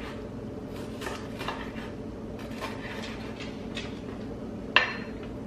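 Chef's knife slicing a red bell pepper on a wooden cutting board: light, irregular taps of the blade on the board, with one sharper knock near the end.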